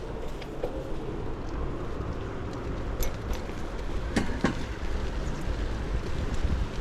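Wind buffeting the microphone: a low rumble under a steady rushing noise, with a few sharp clicks about three and four seconds in.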